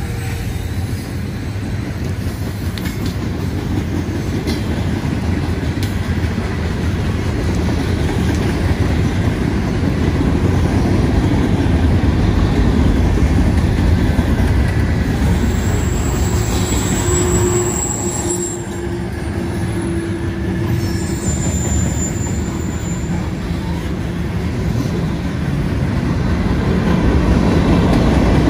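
Freight train cars rolling past at close range: a steady rumble of steel wheels on the rails with clickety-clack over the joints. Brief high-pitched wheel squeals come about halfway through and again a few seconds later.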